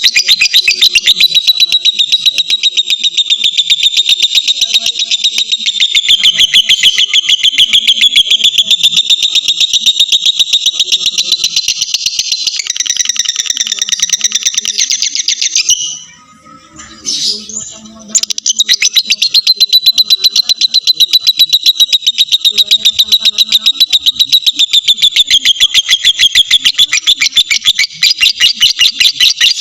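Lovebird ngekek: a long, unbroken, high-pitched rapid chattering trill. It breaks off for about two seconds a little past the middle, then starts again and runs on.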